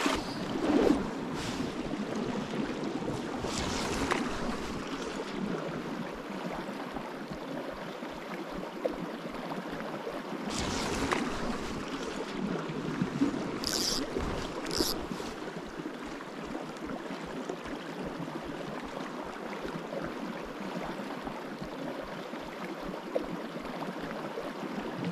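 River current rushing over rocks and riffles, a steady wash of water, with a few short, sharper sounds scattered through it.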